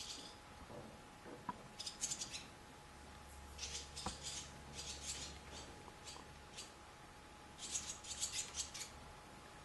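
Barn swallows giving short, high, scratchy chirps in quick clusters: about two seconds in, through the middle, and again near the end.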